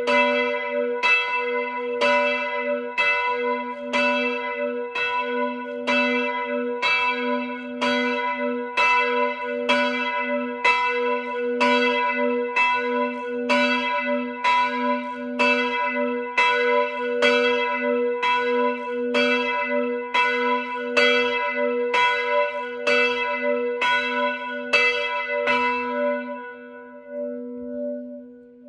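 A single large church bell struck by hand from a rope, rung for Mass at a steady pace of about one stroke a second, each stroke leaving a deep hum under brighter ringing tones. The strokes stop a couple of seconds before the end, and the bell's hum fades.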